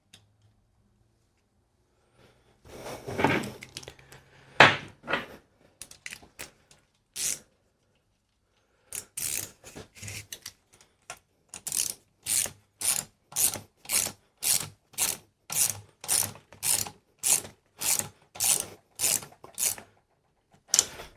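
Socket ratchet being worked back and forth to run in a crankcase bolt. A few irregular handling knocks come first, then a steady run of ratchet clicks at about two strokes a second.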